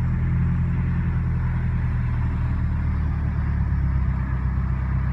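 Hyundai Genesis Coupe 2.0T's turbocharged four-cylinder, fitted with a Garrett GT3076R turbo and 3-inch turbo-back exhaust, idling steadily with a low even hum, heard from inside the cabin.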